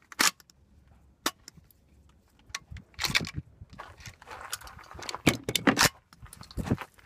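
Metal clicks and clacks of a Catamount Fury II 12-gauge AK-pattern shotgun being handled, its action worked by hand: a sharp click just after the start and another about a second in, then a run of rattling clacks from about three to six seconds in.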